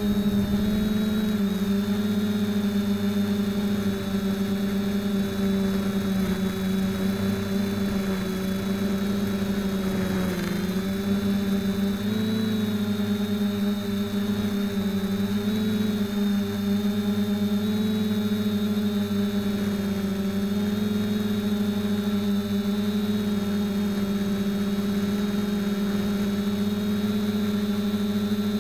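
FPV quadcopter's electric motors and propellers running with a steady hum, recorded by the keychain camera mounted on the craft. The pitch wavers slightly with throttle and dips briefly about ten seconds in.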